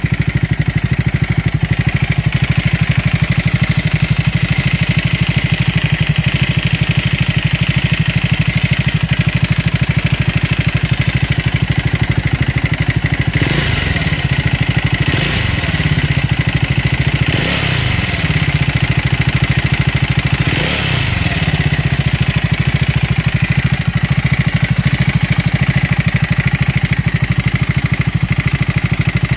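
Triumph 400 single-cylinder motorcycle engine idling, with four brief throttle blips in the middle. The owner posts it as an abnormal engine noise.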